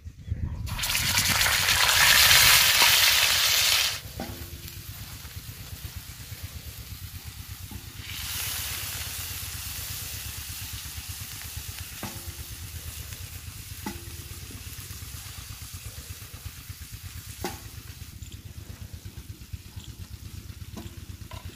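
Minced mutton dropped into hot oil on a tawa griddle, sizzling loudly for about three seconds, then frying more quietly. A second, weaker burst of sizzling comes as the meat is spread and turned with a wooden spoon, with a few light taps of the spoon on the griddle near the end.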